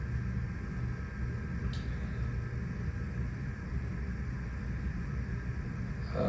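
Steady low hum and rumble of background noise, with one faint click a little under two seconds in.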